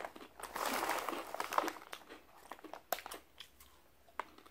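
Crinkling rustle of a Jack 'n Jill Chippy corn-chip bag as it is handled and chips are taken out, followed by a few scattered sharp crunches.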